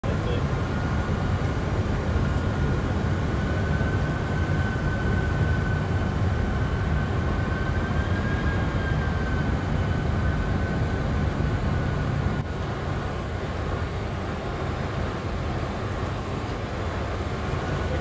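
Steady flight-deck noise of a Boeing 747 on final approach: deep, even airflow and engine noise with a thin, steady whine that wavers slightly in pitch. The noise drops a little about twelve seconds in.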